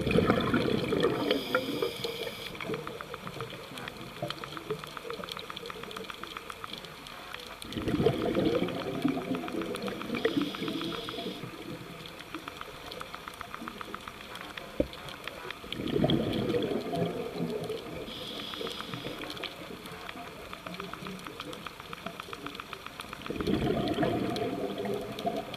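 Scuba diver's breathing through a regulator, heard underwater. A gush of exhaled bubbles comes about every eight seconds, four times, with a short hiss of inhalation between them, over a steady faint crackle.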